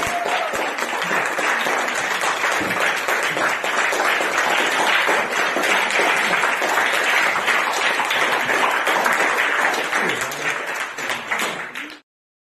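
A group of people clapping their hands, a dense steady patter of claps that fades over the last couple of seconds and cuts off abruptly near the end.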